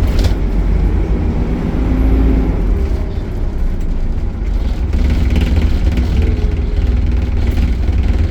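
Optare Solo Euro 5 bus engine running under way with its Allison automatic gearbox, a heavy low rumble whose engine note rises and falls slightly.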